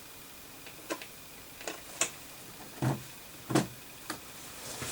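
A handful of light clicks and knocks, about six over four seconds and two of them duller and heavier, from tools and the circuit board being handled on the workbench.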